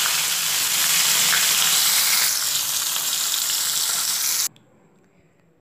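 Pieces of snakehead (shol) fish sizzling as they fry in hot mustard oil in a kadai. The sizzling cuts off suddenly about four and a half seconds in.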